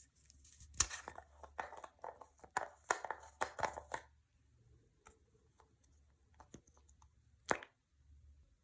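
Clear slime being worked by hand, giving a run of sticky crackles and pops for about three seconds. A single sharp click follows near the end.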